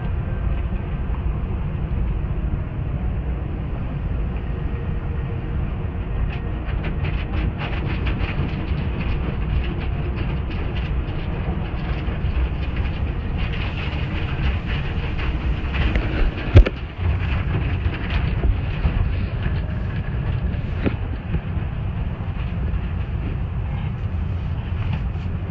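Automatic tunnel car wash heard from inside the car: a steady low rumble of the wash machinery and spray, with water and foam spattering on the glass as many small clicks from about six seconds in, and one loud thump about 16 seconds in.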